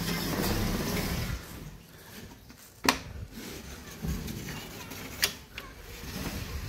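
Window mesh screen being slid open: a grainy rattling scrape for about a second and a half, then a sharp click about three seconds in and another a little after five seconds.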